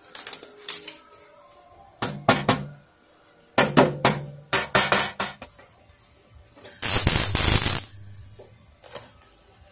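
Hammer tapping a sheet-steel patch panel down onto a scooter body in two quick runs of sharp strikes, then a Haige semi-automatic (MIG) welder laying a tack weld: a crackling, hissing burst of about one second, tacking the patch over a rust hole.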